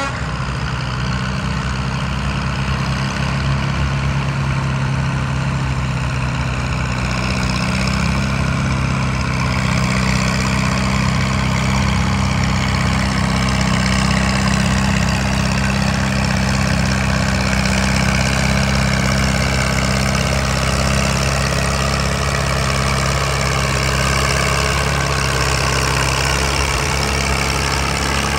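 Antique Farmall tractor engine running steadily under load while pulling a weight-transfer sled in a tractor pull. It gets a little louder about eight seconds in.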